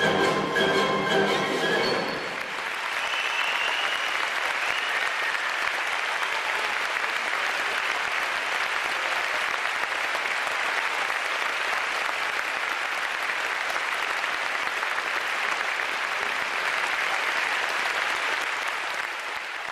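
A live tango orchestra with bandoneons plays its closing notes, which stop about two seconds in; an audience then applauds steadily, easing off slightly near the end.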